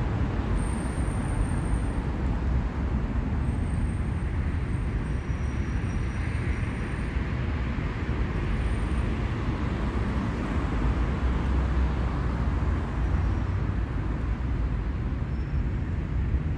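City street traffic noise: a steady, deep wash of passing vehicles.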